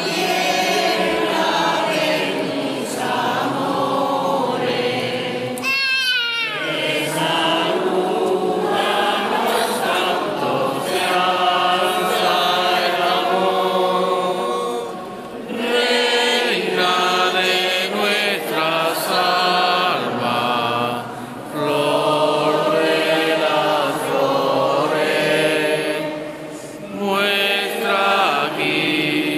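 A group of voices singing together in a chant, phrase after phrase with short breaks between them. About six seconds in, a brief high cry falls sharply in pitch.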